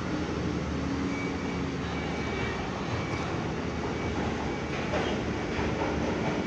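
Steady rumble of large diesel bus engines and traffic, with an engine hum that comes and goes.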